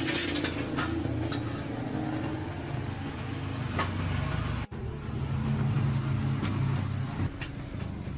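A machine running with a steady low drone, with scattered clicks and taps over it. It breaks off for an instant about four and a half seconds in, then carries on.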